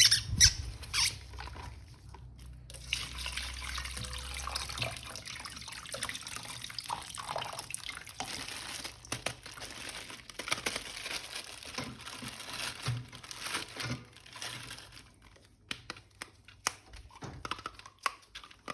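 Plastic toy packaging crinkling and rustling as an action figure is unwrapped by hand, a steady crackling with small clicks that dies down near the end.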